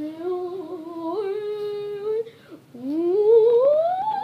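A person humming: a held note that steps up in pitch for about two seconds, then, after a short break, a long hum that slides smoothly upward and keeps rising.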